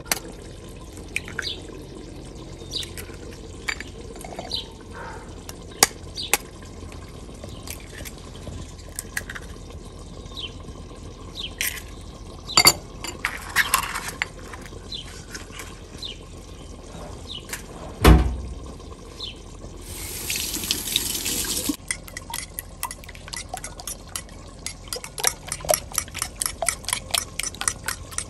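Eggs cracked against a knife edge and dropped into a ceramic bowl: scattered taps and shell clicks, with one loud thump about 18 seconds in and a brief hiss a little later. From about 22 seconds, a fork beats the eggs against the bowl in quick, even clicks, several a second.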